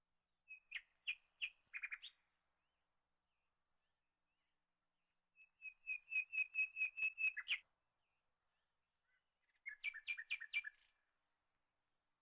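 A bird chirping in three short runs of quick, evenly repeated high notes, each run about one to two seconds long, with silence between them.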